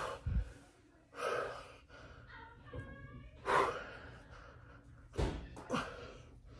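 A man breathing hard through an ab exercise: about five sharp, gasping exhales, the loudest a little past the middle. A brief low thump comes just after the start.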